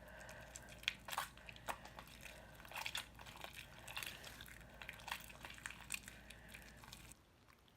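Cloud slime being kneaded and squished by hand, with irregular crackling clicks and pops; it stops abruptly about seven seconds in.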